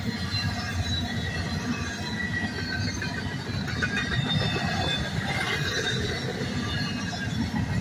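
Intermodal freight train's container well cars rolling past: a steady rumble of steel wheels on rail, with thin, high wheel squeals running over it.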